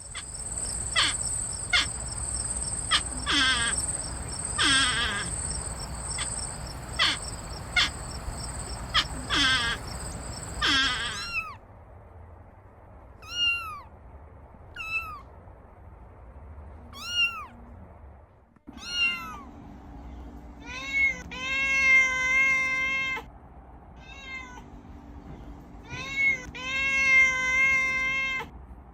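Kittens meowing again and again in short, high mews. For roughly the first eleven seconds a steady high insect trill runs behind them. After a break about two-thirds of the way through, the meows become longer and held.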